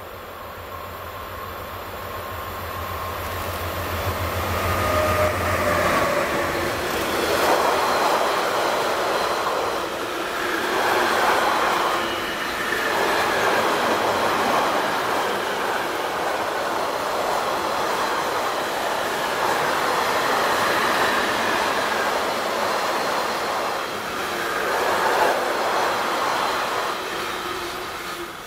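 Electric locomotive hauling a long freight train of double-deck car-transporter wagons past: a low hum grows louder over the first few seconds as the locomotive approaches, then the wagons' steady rolling rumble and wheel noise, swelling and easing as they pass, with a thin steady whine above it.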